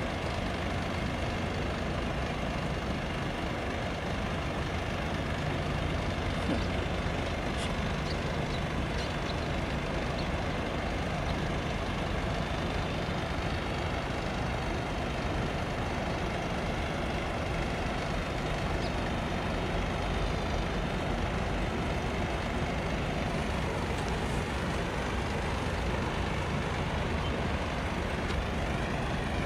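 Steady low engine rumble with a constant background din and a few faint ticks.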